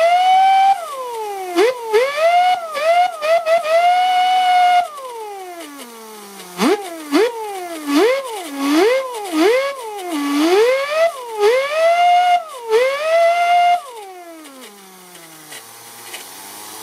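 Lego vacuum-driven turbine whining as it spins, its pitch rising and falling again and again as it speeds up and slows, with sharp clicks at some of the peaks. Near the end the pitch falls steadily as the turbine spins down.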